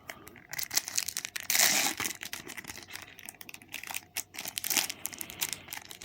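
Wrapper of a Match Attax card packet crinkling and tearing as it is opened and handled, a dense stretch of crackling about a second and a half in among lighter crackles and clicks.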